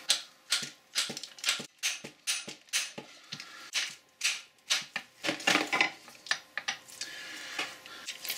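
Boxford lathe apron being wound by its handwheel, its exposed gears and handwheel giving a run of sharp metallic clicks and knocks, two or three a second, with a denser clatter a little past halfway.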